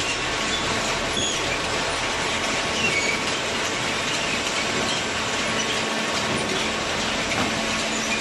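Waste paper baling machinery running: a steady, dense mechanical noise with faint high squeaks now and then.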